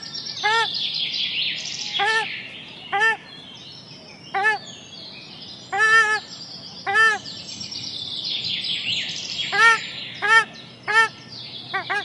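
Mixed birds calling in an aviary: one bird repeats a short, clear, arching call about ten times at uneven intervals, over a steady busy chatter of high chirps and twitters from smaller birds.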